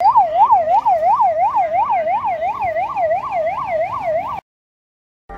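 Ambulance siren sounding in a fast up-and-down sweep, about three sweeps a second, cutting off abruptly about four seconds in.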